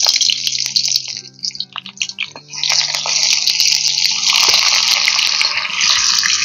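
Chopped onions sizzling loudly in hot mustard oil in a kadai. The sizzle drops back about a second in, with a few light clicks, and surges again from about two and a half seconds in.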